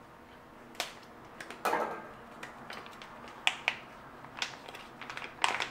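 Scissors snipping at a small plastic packet, then the packet crinkling as it is opened by hand: a string of sharp clicks and short rustles.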